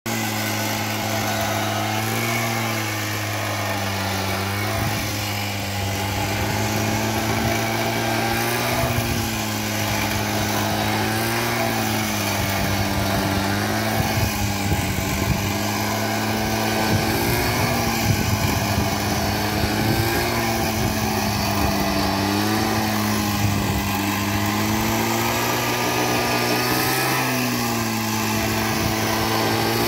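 A small petrol engine drives a two-man mini tea plucking machine, running steadily while the cutter bar shears across the tea bushes. Its pitch dips and recovers every couple of seconds.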